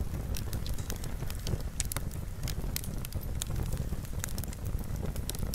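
Wood fire crackling, with irregular sharp pops and snaps over a steady low rumble.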